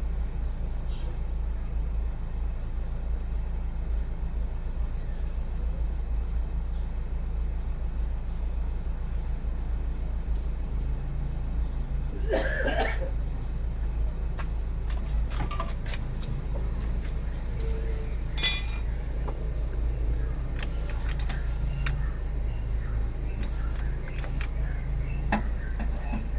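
A steady low hum with scattered small metallic clicks and clinks, the clearest about halfway through and again a few seconds later, typical of parts and tools being handled during repair work.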